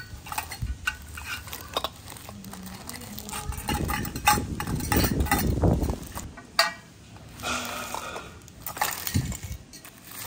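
Miniature stainless-steel kitchen utensils and small pots clinking and knocking together as they are handled, with rustling of their plastic wrappers. A louder stretch of rustling and knocking comes about halfway through.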